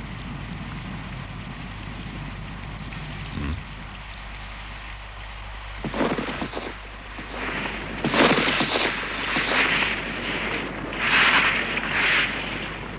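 Steady rain of a rainstorm, then from about six seconds in a run of loud, uneven gusts of storm noise surging over it.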